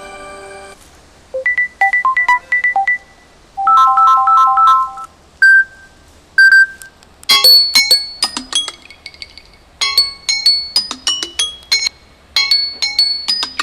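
Samsung Galaxy Tab A 8.0 (2019) tablet playing its built-in ringtones one after another through its speaker. A sustained chord ends just under a second in, then come a short run of quick beeps, a repeated three-note chime, two single tones, and from about seven seconds in a bright, clinking chime melody that repeats about every two and a half seconds.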